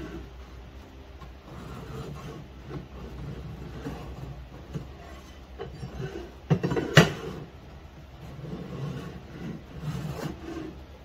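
A steel knife blank being slid and scraped against a height gauge's scriber on a wooden bench, marking centre lines along the edge: uneven scraping and rubbing, with a couple of sharp knocks about two-thirds of the way through.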